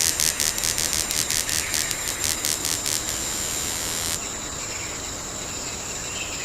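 Insects calling in a chorus: a rapid, even pulsing of about five pulses a second for the first four seconds, over a steady high-pitched buzz that carries on after the pulsing stops.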